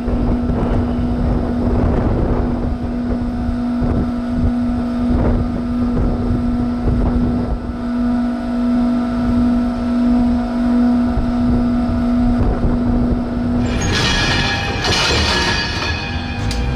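Alstom Prima H3 hybrid shunting locomotive running with a steady hum as it moves over the rails, with irregular knocks and clatter. Near the end, a harsh, high metallic screech of wheels on the track joins in.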